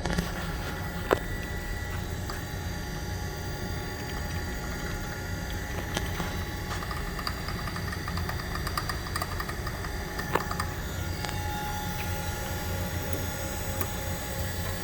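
Okamoto Linear 618 manual surface grinder running with a steady hum. There are sharp clicks about a second in and again near ten seconds, and a run of rapid ticking in the middle.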